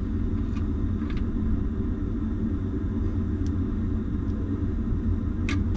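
A steady low rumble of an engine running, with a few faint clicks.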